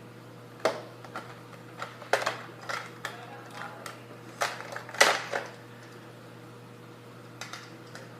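Plastic parts of a broken Nerf gun clicking and clattering as it is pried apart by hand: scattered knocks, the loudest about five seconds in, with a quieter stretch after six seconds. A faint steady hum runs underneath.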